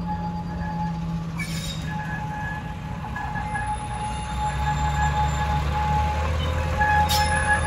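Narrow-gauge diesel locomotive hauling a coach, approaching, its engine hum growing louder. A thin high squeal from the wheels comes and goes, with a couple of brief clicks.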